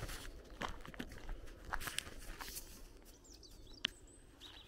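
Footsteps through grass and fallen twigs, an irregular rustling and crunching that thins out after about three seconds. Faint bird chirps come in during the second half, with a single sharp snap near the end.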